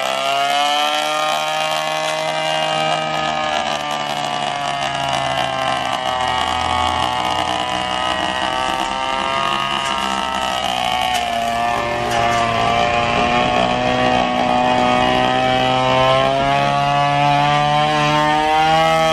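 Petrol brush cutter running at high revs while cutting grass, its engine note wavering slightly up and down as the throttle shifts.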